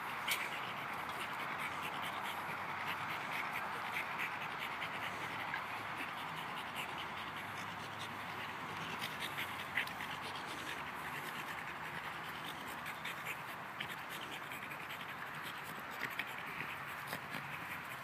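French bulldog snuffling and breathing noisily as it noses and paws at a ball in grass, with steady scratchy rustling and many small clicks.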